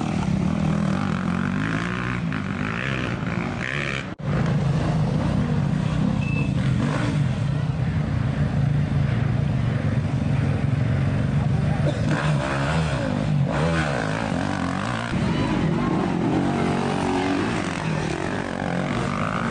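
Off-road dirt bike engines running at low revs as the bikes pass slowly through the pits, a steady low engine note with people talking over it. The sound cuts off for an instant about four seconds in.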